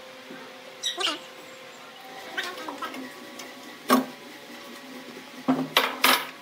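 Steel bar clamps knocking and clanking against wood and the bench as they are tightened and moved. Several separate sharp knocks, the loudest about four seconds in and a quick cluster near the end, over a faint steady hum.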